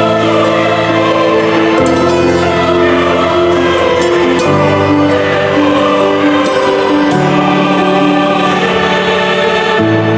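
Background music: a choir singing slow, sustained chords in a sacred, gospel-like style.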